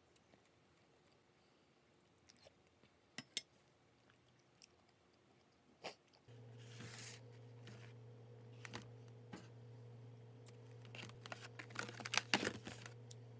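A metal spoon clinks a few times against a stainless steel bowl of congee. Then a steady low hum starts, and plastic packaging crinkles and rustles as it is handled, loudest near the end.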